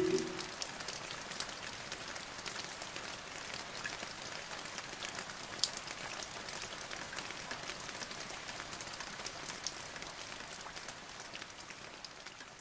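Rain falling: a steady patter of many small ticks, slowly fading out near the end.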